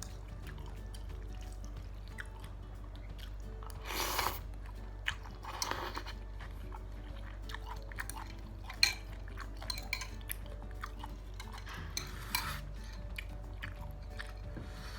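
Close-up eating of chicken noodles and meatballs from a bowl: chewing, a few short noisy slurps, and cutlery clinking against the bowl, with one sharp clink a little past the middle.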